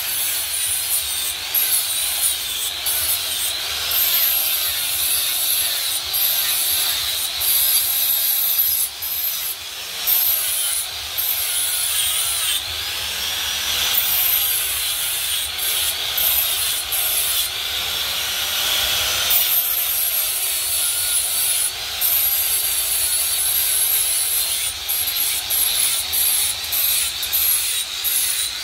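Electric angle grinder grinding a steel knife blade, a continuous abrasive rasp over the motor's high whine, which sags and recovers over and over as the disc is pressed on and eased off the metal.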